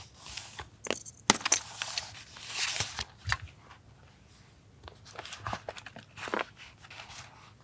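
Paper being handled for a journal collage: rustling and crinkling with small sharp clicks and taps, busiest in the first three seconds, then sparser clicks.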